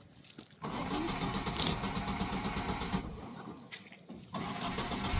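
Car engine being cranked by its starter, with a fast pulsing churn for a couple of seconds, then a pause and a second try that catches near the end and settles into a steady running hum.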